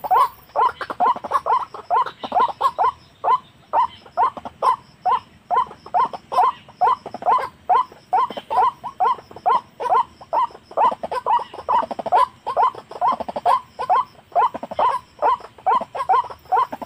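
White-breasted waterhen calls: a steady run of short, falling notes, about three a second, repeated without a break.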